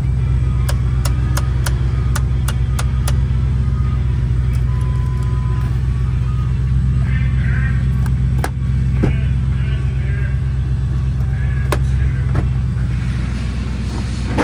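The 2008 Ford F-250 Super Duty's 5.4-litre V8 idling steadily, heard from inside the cab. Over it, a quick run of about eight clicks from dashboard buttons being pressed in the first three seconds, a short beep a few seconds in, and a few scattered clicks from the visor and door controls later.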